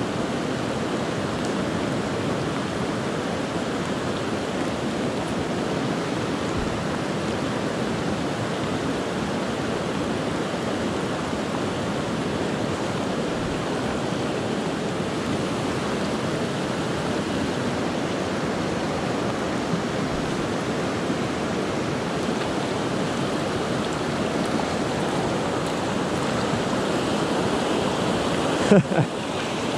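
Steady rush of a fast river running over rocks and riffles. Near the end, a brief sharp knock.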